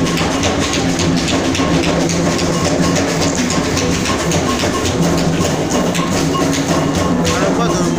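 Loud music with drums and percussion playing a steady beat, dance music.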